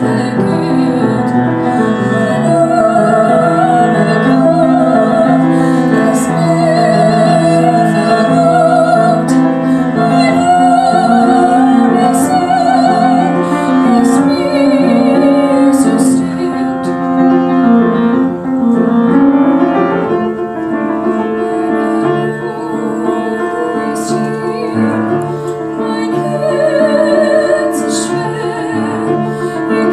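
A young female soloist sings held, sustained notes with vibrato over piano accompaniment.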